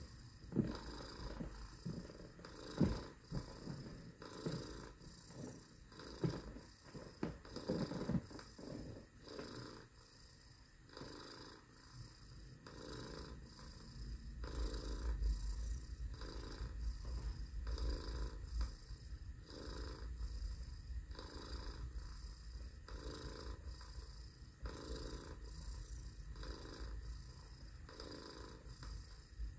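A person imitating a cat's purr: a low rolling rumble that pulses on and off with each breath. A few sharp knocks are heard in the first several seconds.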